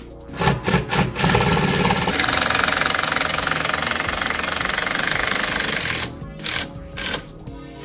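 Cordless drill-driver driving screws into a fibreglass boat deck to fasten a hatch cover. It gives a few short spurts, then a steady run of about five seconds, then two short spurts near the end. Background music plays underneath.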